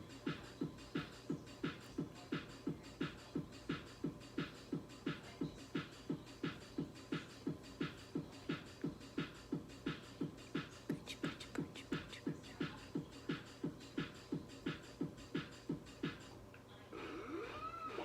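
Electronic keyboard's techno rhythm playing a steady drum beat at about two and a half beats a second. The beat stops a couple of seconds before the end, and a few short sliding tones follow.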